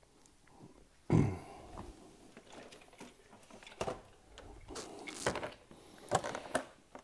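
Handling noises from a 1:10 RC truggy being lifted and moved about by hand: a short thump about a second in, then scattered light knocks and rustles.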